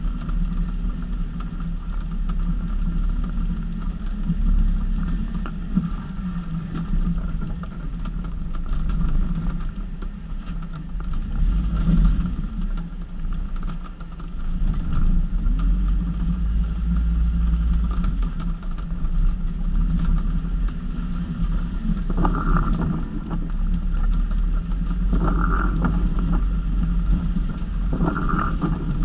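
Jeep Wrangler YJ engine running steadily at low trail speed, swelling and easing as the throttle changes. Three short, higher-pitched sounds come in near the end.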